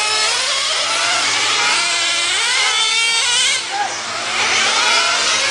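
Racing engines running on a track: several vehicles going by, their high engine notes rising and falling as they pass, with a short lull about four seconds in.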